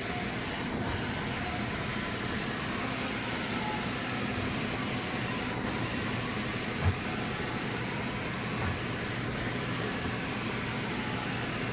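Johnford VMC1300HD machining centre's Y axis traversing under jog, its servo-driven ballscrew moving the table along the box ways with a steady, quiet hum. One short knock about seven seconds in. The axis runs nice and quiet, a sign of a drive in good condition.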